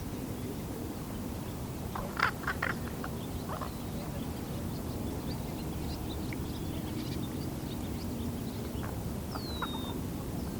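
Juvenile raven calling: a quick run of three or four short calls about two seconds in, then a few fainter sounds, as the young bird practises its voice.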